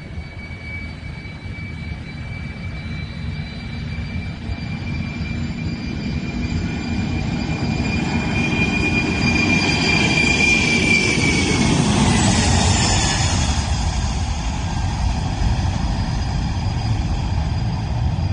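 A Boeing 747's four turbofan engines at takeoff power during the takeoff roll and lift-off: a deep rumble with a high fan whine that grows louder, peaks about ten to twelve seconds in, then drops in pitch as the jet passes and climbs away.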